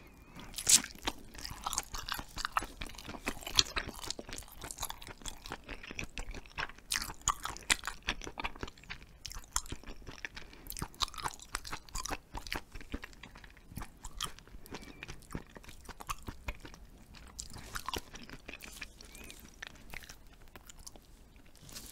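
A person biting and chewing hagfish-skin jelly (kkomjangeo-skin muk) close to the microphone. There is a sharp bite about a second in, then steady chewing with many small clicks and smacks.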